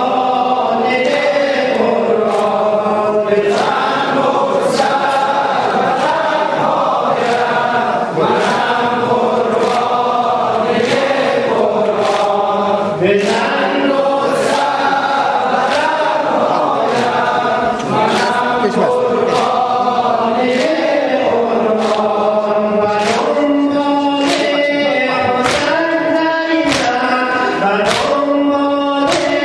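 Many men chanting a Shia mourning lament (noha) in unison, with rhythmic chest-beating (sineh zani). The open-handed slaps on the chest land about once a second.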